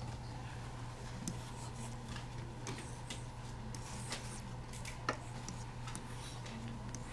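Dry-erase marker writing on a whiteboard: scattered light taps and scratches, with one sharper click about five seconds in, over a steady low hum.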